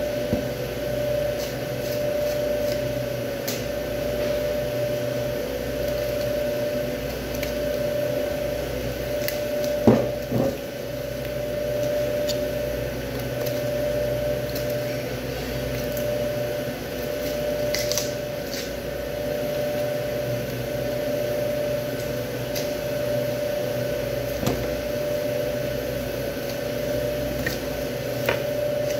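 Steady mechanical hum from running room equipment, with one mid-pitched tone held throughout. On top of it come a few soft taps and scrapes of a butcher's knife working along beef rib bones, and one louder knock about ten seconds in.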